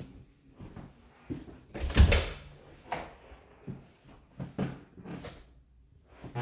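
A white panel closet door being unlatched and swung open, with a loud knock about two seconds in and a sharper click about a second later, among light footsteps on a wood floor.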